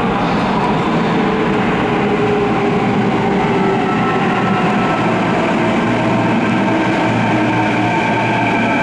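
Kintetsu electric train pulling into an underground station platform, running loudly and slowing, with several whining tones that slowly drop in pitch.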